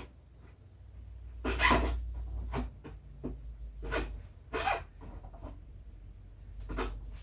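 Hand work on metal parts of an old miter saw: a series of irregular scraping and knocking strokes, the longest and loudest about one and a half seconds in.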